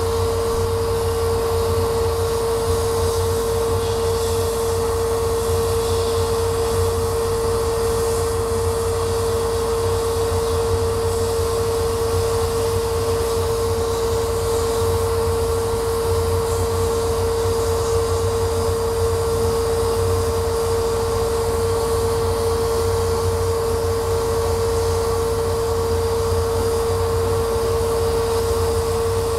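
Laser cutter running while it cuts a thin wooden sheet: a steady machine hum with one constant pitched tone, a low drone beneath and an airy hiss, never changing.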